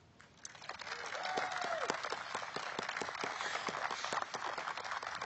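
Audience applause starting about half a second in and going on steadily, with a single whoop from the crowd about a second in.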